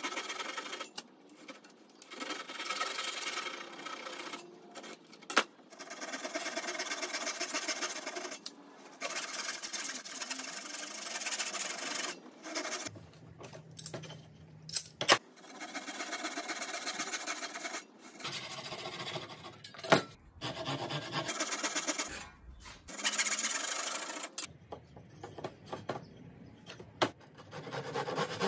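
Bahco ProfCut handsaw cutting the shoulders of a wooden tenon. It makes spells of quick, rhythmic rasping strokes broken by short pauses, with a few sharp knocks in between.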